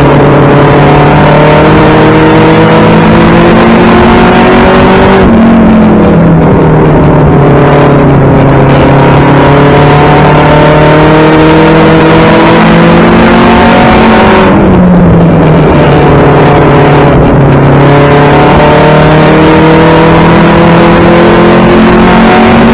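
The four-cylinder engine of a 1992 Toyota Celica GT race car, heard from inside its cabin, pulling hard with its pitch slowly rising along the straights. The pitch drops off about five seconds in and again about fifteen seconds in as the driver lifts for the turns, then climbs again, over steady road and wind noise.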